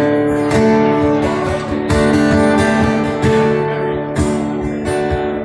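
Live band music with no singing: acoustic guitars strumming held chords over a steady beat.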